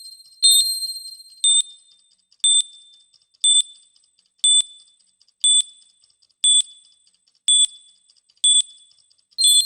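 Countdown timer beep sound effect: a short, high electronic beep once a second, marking each second of the count. The beeps near the start and end are longer and brighter, with a ringing chime.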